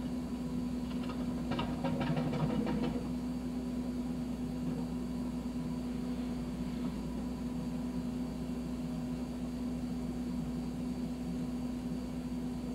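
John Deere backhoe's diesel engine running steadily, with a short stretch of rattling and clanking between about one and three seconds in.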